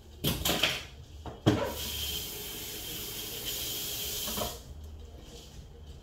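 A few handling knocks, then a sharp knock and a steady high hiss like rushing water or steam for about three seconds, which stops abruptly.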